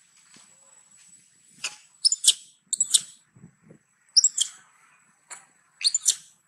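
Juvenile long-tailed macaque crying in short, high-pitched squeals, about four loud bursts with a weaker one between. These are the cries of a young monkey being weaned and begging its mother for milk.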